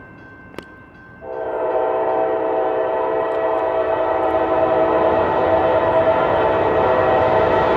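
Norfolk Southern diesel locomotive's air horn sounding one long steady blast, starting suddenly about a second in.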